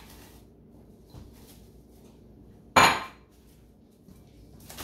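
A single sharp clank of a bowl knocking against a stainless steel stockpot, about three seconds in, ringing on briefly after the hit.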